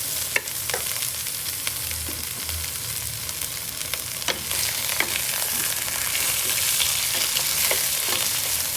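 Garlic and freshly added onion sizzling steadily in a hot pan as they are sautéed, with a few sharp clicks from stirring.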